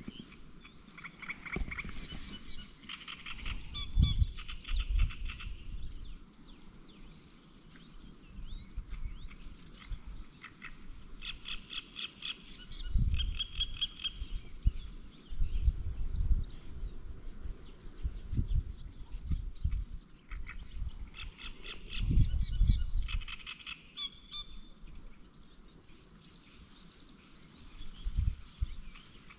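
A chorus of frogs croaking in repeated bouts of fast, pulsed rattling calls. Loud low rumbling thumps come and go between and under them.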